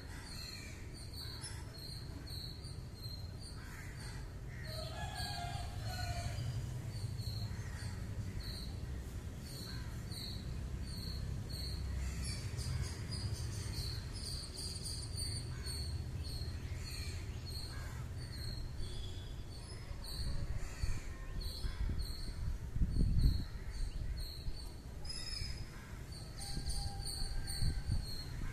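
Crows cawing now and then over a fast, even run of short high chirps, with a steady low rumble underneath. A single low thud about three-quarters of the way in.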